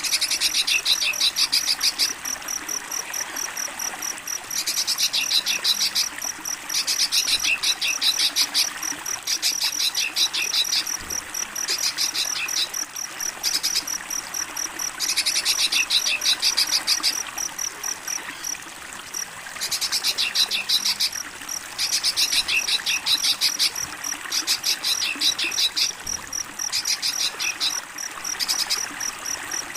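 Cricket chirping in repeated fast pulsing trills, each one to two seconds long with short gaps between, over a steady trickle of running water.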